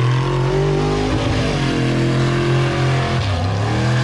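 Off-road truck engine revving hard, its pitch rising and falling, with a brief dip about a second in and a deeper drop a little past three seconds.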